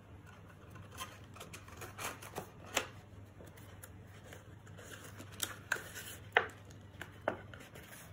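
Card stock being handled: faint scattered taps and rustles as glued flaps of a paper box are folded down and pressed in place, over a low steady hum.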